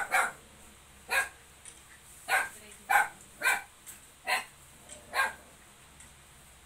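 A dog barking: about seven short barks at an uneven pace, stopping a little past five seconds in.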